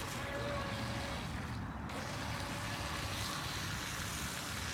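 Radio-controlled speedboat running out on the water: its motor is a faint steady whine over a constant rushing background.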